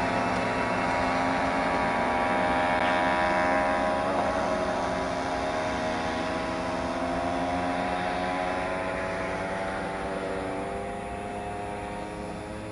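Small two-stroke moped engines running hard at high revs, a buzzing drone that holds steady, then drops a little in pitch and fades as the mopeds pull away.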